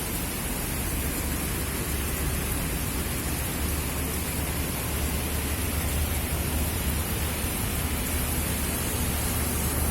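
Heavy rain falling, a steady dense hiss with a low rumble underneath.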